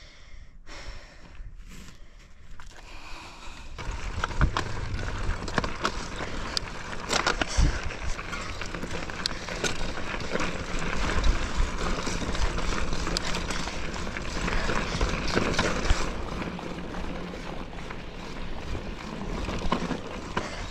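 Mountain bike riding over a rocky dirt trail: tyres crunching over gravel and rock with a jumble of rattles, clicks and knocks from the bike. It gets louder about four seconds in and eases a little near the end.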